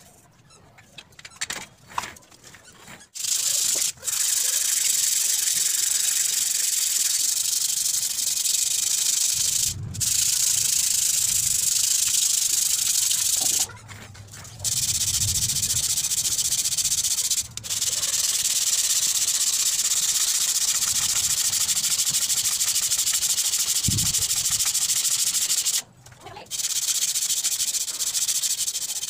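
A few knocks, then sandpaper rubbed by hand along the rusty steel legs of an office chair base, taking the rust off. It is a steady, scratchy hiss that stops briefly a few times.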